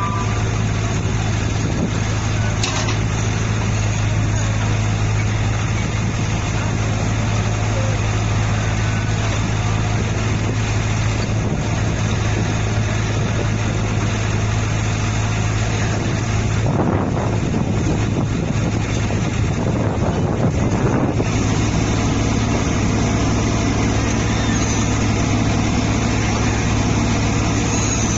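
Screw pile driver's engine running steadily with a constant low hum, its sound shifting briefly a little past the middle.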